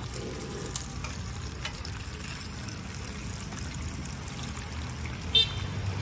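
Battered chicken pieces deep-frying in a wok of hot oil, a steady sizzle, while metal tongs turn them. About five seconds in there is a single sharp metallic clink, tongs striking the wok.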